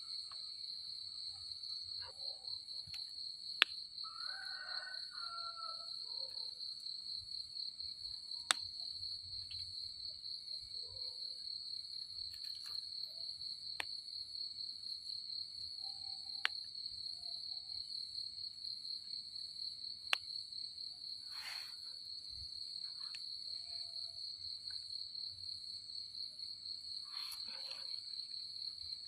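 Steady high-pitched trill of night insects. Over it come a few sharp clicks from termite mushrooms being snapped off and picked by hand in the undergrowth.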